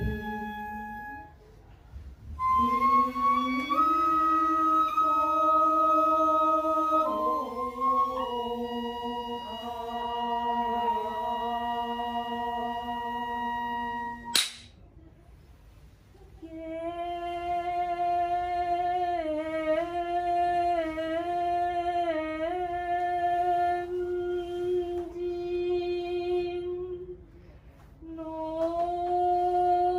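Women's voices singing a slow shirabyoshi song in long held notes. The pitch steps from note to note and wavers in small dips. There are breath pauses about a quarter of the way in, midway and near the end, and a sharp click just before the midway pause.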